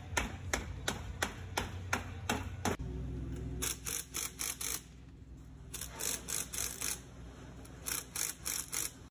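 Rapid, evenly spaced metal tapping, about four knocks a second, as a ring gear is tapped down to seat it on a differential carrier. About three seconds in this gives way to a low hum broken by short bursts of quick high-pitched clicking.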